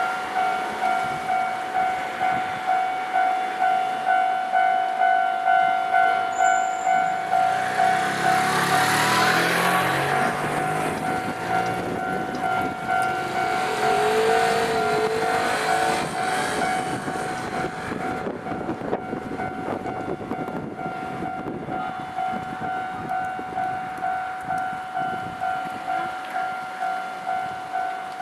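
Japanese level-crossing warning bell ringing in evenly repeated electronic strokes, about one and a half a second. A Nankai Kada Line train passes over the crossing for several seconds near the middle, its running noise swelling and fading under the bell.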